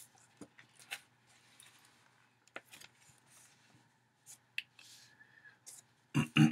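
Book pages being leafed through: scattered soft paper rustles and small ticks. A short vocal sound comes near the end.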